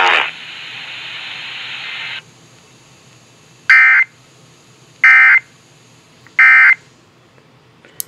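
Emergency Alert System end-of-message data bursts playing through a Baofeng handheld radio's speaker: three short, loud, buzzy tone bursts, each about a third of a second, a little over a second apart. They follow about two seconds of hiss and mark the end of the alert.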